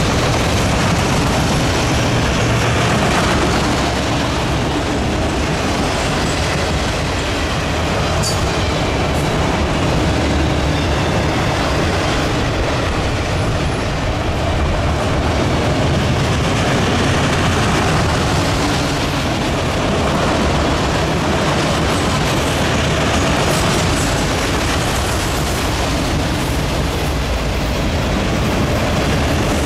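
Autorack freight cars of a CSX train rolling past, their steel wheels running steadily on the rails.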